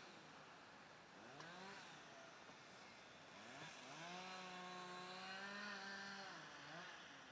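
A small engine, faint, revving up and easing off several times and holding a steady high speed for a couple of seconds in the middle.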